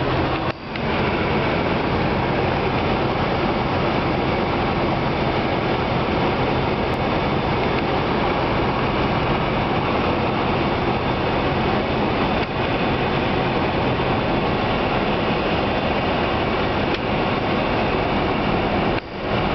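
Light aircraft's piston engine and propeller heard from inside the cockpit: a steady, loud drone of cabin noise with a low engine hum. It dips briefly about half a second in and again near the end.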